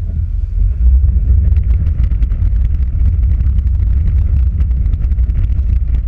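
Suzuki Jimny fording a river, heard from inside the cabin: a heavy low rumble of the vehicle driving through the water, with water splashing and spraying against the body and windshield, thickening from about a second and a half in.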